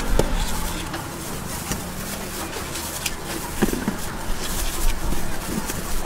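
Steady background noise of a busy street stall, with faint voices and a few light clicks and knocks.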